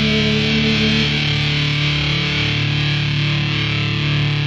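Karaoke backing track playing: distorted electric guitar holding sustained chords, with no singing.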